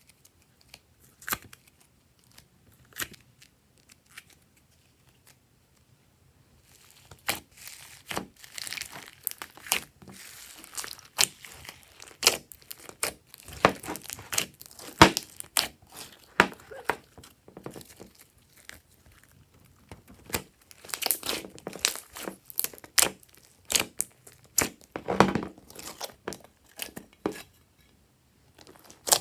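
Hands kneading and stretching glossy slime, making a run of sticky clicks and pops. The clicks are sparse at first, turn dense about a quarter of the way in, ease off briefly past the middle, then pick up again.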